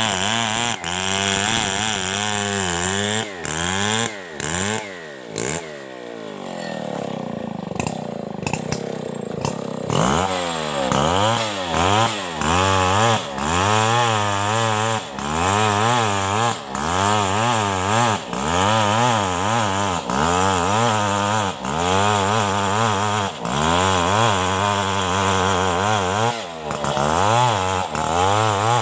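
Two-stroke chainsaw ripping a coconut trunk lengthwise, its engine pitch rising and falling over and over as the chain bites and frees in the wood. About four seconds in it drops back toward idle, and it is throttled up into the cut again around ten seconds in.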